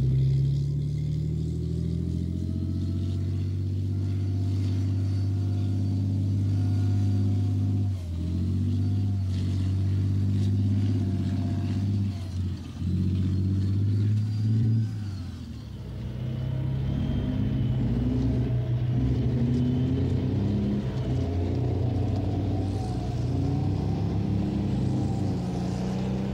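Heavy tracked armoured vehicles running on their diesel engines, a Challenger 1 tank among them: a loud, steady low engine note. The note dips briefly a few times and turns rougher and more uneven in the second half as another vehicle takes over.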